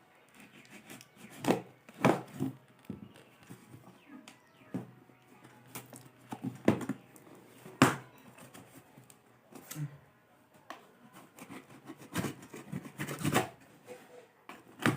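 A delivery parcel being opened by hand, with irregular knocks and scrapes of the packaging as it is pulled and torn at.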